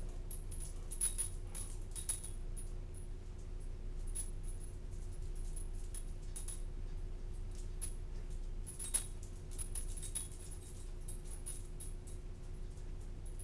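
A dog's metal collar tags jingling in short clusters as it moves about, once about a second in and again around nine to eleven seconds in, over a steady electrical hum.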